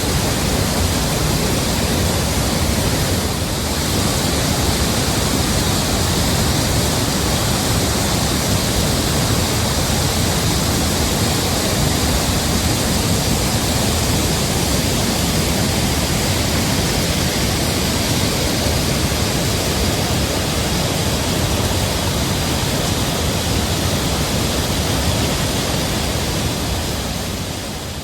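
Rain-swollen mountain stream rushing over rocks in a steady, loud roar of water.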